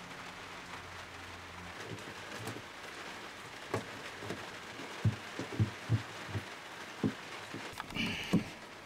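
Scattered light knocks and taps of hands working a plastic water hose and its fittings at a small water pump inside a wooden cabinet, with a short scrape near the end. A faint low hum stops about two seconds in.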